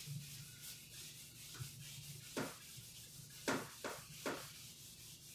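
Marker pen writing on a whiteboard: a few short, faint scratching strokes over a low steady hum.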